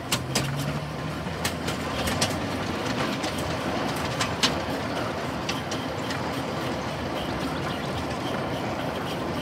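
Miniature railway train riding along the track: a steady rumble with sharp clicks of the wheels passing over the rails, most of them in the first half.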